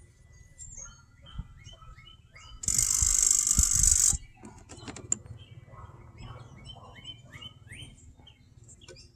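Small birds chirping over and over, short quick chirps. About three seconds in, a loud hissing rush of noise of unclear source lasts about a second and a half, then cuts off.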